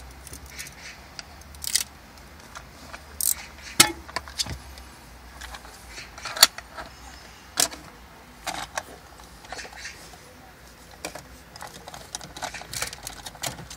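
Scattered clicks, taps and rustles of a plastic tablet mount being handled as tape is pressed onto its base and the base is slid into a car's cassette deck slot. Two sharper clicks stand out, about four and six and a half seconds in.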